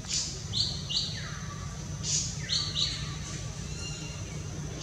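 Wild birds calling: pairs of short sharp high notes come twice, alongside longer falling whistles and brief bright chirps, over a steady high thin tone and a low rumble.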